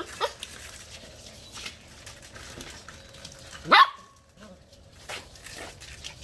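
Shetland Sheepdog puppy barking: one sharp, high, upward-sweeping yip about four seconds in, with a couple of short, fainter yips near the start.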